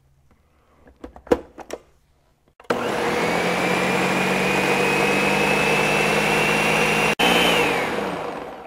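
Countertop blender: a few light knocks as the jar is seated on the base, then the motor switches on abruptly and runs, puréeing cooked green chiles, onion and chicken broth. Its whine climbs slightly in pitch, breaks for an instant, then winds down with a falling pitch near the end.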